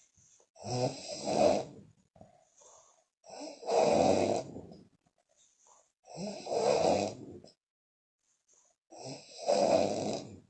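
A sleeping woman snoring loudly, with her lips puffing. Four long snores come at an even pace, about one every three seconds, with near-quiet breaths between them.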